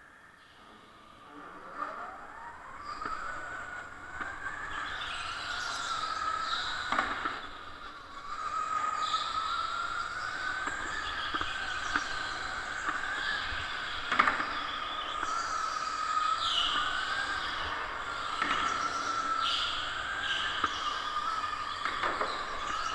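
Electric go-kart's motor whining as it pulls away from a standstill about a second and a half in, the pitch climbing, then rising and falling with speed around the track. Higher tyre squeals come and go in the corners, and there are a few sharp knocks.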